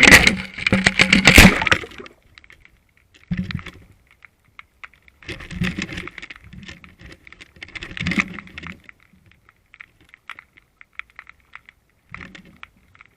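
Bursts of rattling and scraping with sharp clicks, from an underwater camera in its housing knocking and rubbing against things. The loudest comes in the first two seconds, with three shorter bursts after it and faint ticks between.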